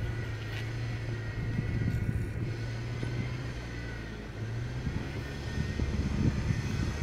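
Engine of a lifted solid-axle-swap Toyota pickup running at low revs as the truck crawls slowly over rough dirt, a steady low drone that shifts in pitch about four seconds in.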